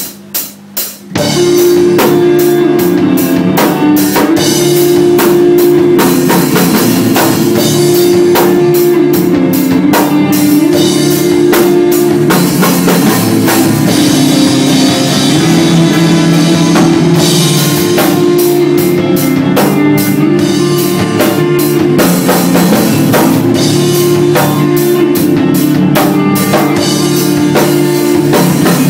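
Post-rock band playing live on drum kit, electric guitars and bass. A few separate drum hits open it, then about a second in the full band comes in loud, with constant cymbal and drum strikes over sustained guitar and bass notes.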